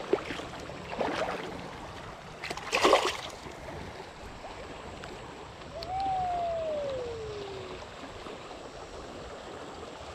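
Steady rush of river water through a rapid, with two short splashes in the first three seconds as a small bass is dropped back into the current; the second splash is the loudest. About six seconds in comes one long tone falling in pitch over about two seconds.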